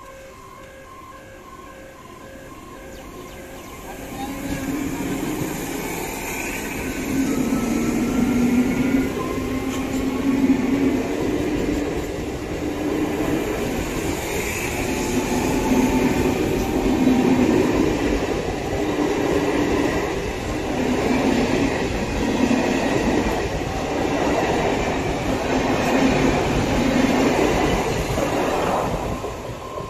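Eastern Railway EMU electric local train passing close by at a level crossing. It grows loud about four seconds in and holds as a steady rumble of wheels on rails that swells and eases every second or two as the coaches go by. It drops off near the end.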